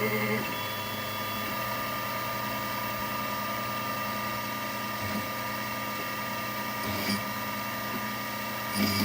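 Techno HD-II tabletop CNC router running a drilling program with a 1/8-inch drill: a steady spindle whine over a low motor hum that shifts several times as the machine moves between holes.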